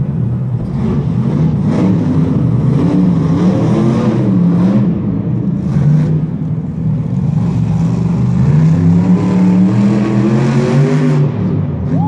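Monster truck's supercharged V8 engine revving hard, its pitch rising and falling again and again as the truck jumps and accelerates across the dirt.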